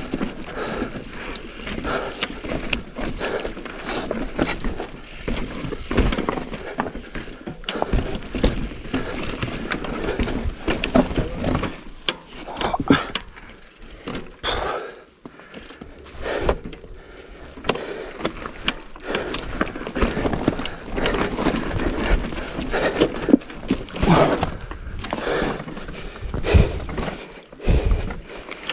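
Mountain bike riding over rough, rocky and loose trail: tyres crunching and clattering over rock and gravel, with frequent irregular knocks and rattles from the bike.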